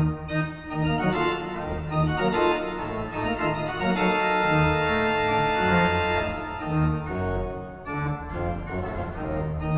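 Organ playing thick chords over repeated low pedal notes, swelling into a fuller held chord in the middle before returning to the pulsing low notes.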